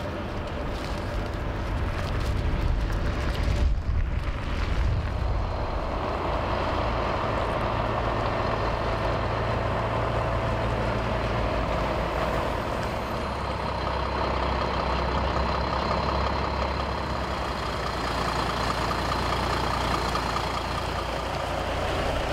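Heavy semi-trailer truck's diesel engine running at low speed as the rig drives slowly past, with its multi-axle trailer rolling along the road.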